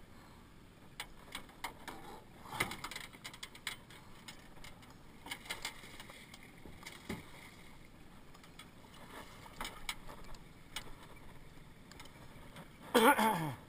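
Water splashing and scattered knocks as a lingcod is scooped into a landing net at the side of a small skiff and lifted aboard. A man's voice sounds briefly, loud and falling in pitch, just before the end.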